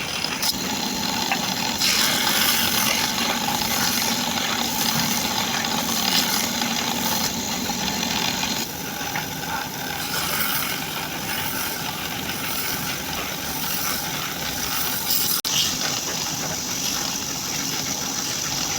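A woodturning lathe running steadily, with a rough high-pitched scraping noise that swells and fades every few seconds, and one sharp click about fifteen seconds in.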